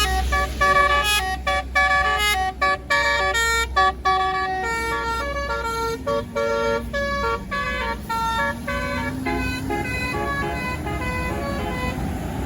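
Tour bus's telolet basuri multi-tone horn playing a quick tune of short notes that jump in pitch, over the low rumble of the bus engine. About halfway through the notes thin out into fewer, longer tones.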